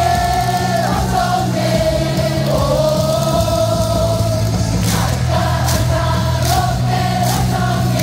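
Huge baseball stadium crowd singing a cheer song in unison over loud stadium PA music with a steady bass line. A few sharp claps or beats come between about five and seven seconds in.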